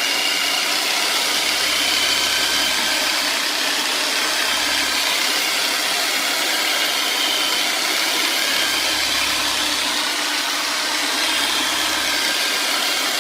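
Handheld electric percussion massager running steadily as it is worked over the back and pelvic muscles, a continuous motor buzz with a low rumble that comes and goes.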